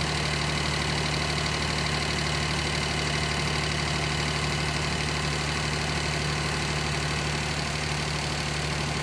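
Daihatsu Mira's three-cylinder petrol engine idling steadily, not yet warmed up, with the radiator cap off so trapped air can bubble out of the freshly refilled cooling system.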